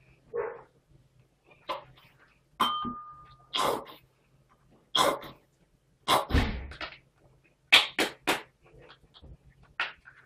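A spoon knocks against a ceramic bowl a few times. Then a plastic squeeze bottle of ketchup is squeezed in several short, spluttering squirts of air and sauce.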